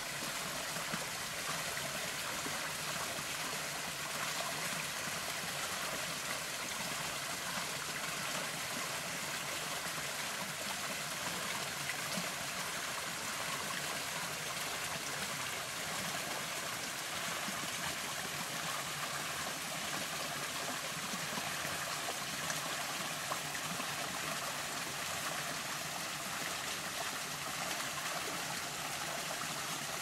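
Garden waterfall of red Welsh sandstone pouring into a pond, with water splashing down two cast granite Flowform cascades: a steady, even splashing and trickling that stays mostly high and bright.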